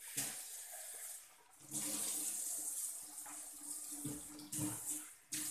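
Soup broth boiling in a large aluminium pot on a gas stove, a rushing, bubbling water sound that comes in a few stretches with short breaks.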